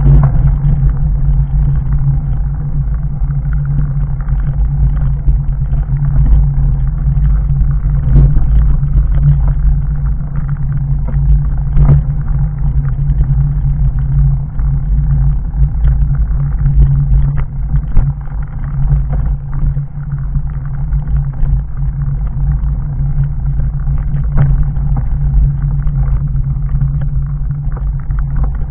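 Fat bike on 4-inch Schwalbe Jumbo Jim tyres rolling down a rocky gravel trail: a steady low rumble with frequent rattles and a few sharper knocks as it rides over stones.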